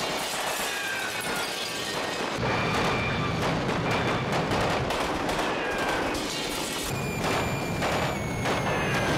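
Dense battle gunfire: rapid shots and automatic fire with occasional booms, heard over a film music score.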